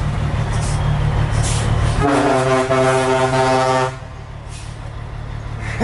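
A truck engine running, then a single long blast of the truck's horn about two seconds in, held steady for about two seconds. The horn is sounded to wake a driver sleeping in a nearby truck.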